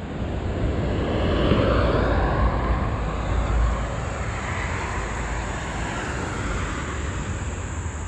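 A passing vehicle: a broad rushing noise that swells over the first couple of seconds and then eases to a steady rumble.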